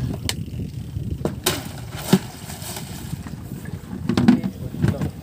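Scattered sharp knocks and clicks, the loudest about two seconds in and a cluster near the end, over a steady low rumble, as gear is handled aboard a small fishing boat.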